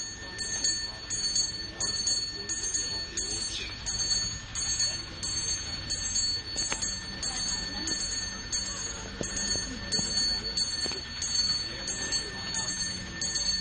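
A small brass temple hand bell rung continuously in a quick, even rhythm of about two to three strikes a second, its high ringing tones sustained between strikes.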